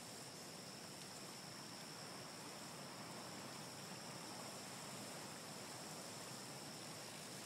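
Faint, steady forest ambience soundscape: an even hiss with a thin, steady high-pitched tone held over it.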